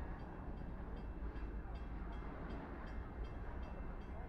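Freight train of covered hopper cars rolling past close by: a steady low rumble of wheels on rail with a regular light clicking, about three a second.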